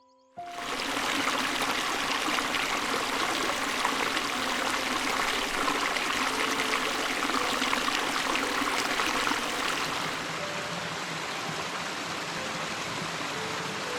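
Running water, like a stream or small waterfall, a steady rushing and trickling that starts about half a second in and eases slightly near the end.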